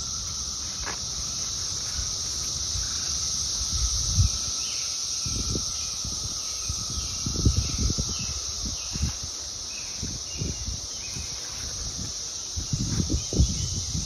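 Chorus of periodical cicadas: a steady high-pitched drone, with scattered low thumps.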